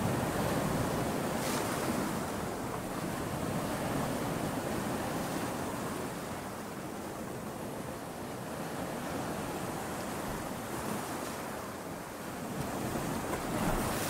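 Ocean surf: waves breaking and washing in a continuous rush, swelling gently and rising a little near the end.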